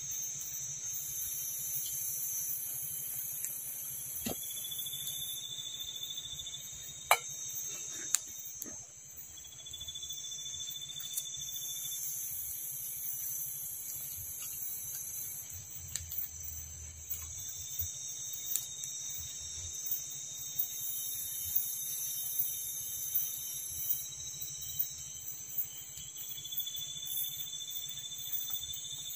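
Night-time tropical forest insects: a steady high-pitched drone with a higher chorus that swells and fades in long pulses. A thin rising whistle-like call, about two seconds long, comes four times, and a crackling campfire gives scattered pops, two sharp ones in the first third.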